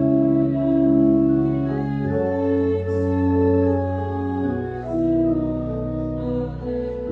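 Organ playing slow, held hymn chords over sustained deep bass notes, the harmony changing about every two seconds.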